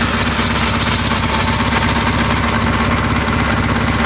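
Case garden tractor engine running steadily with an even, regular beat, through a custom-built dual-outlet exhaust; it sounds pretty decent.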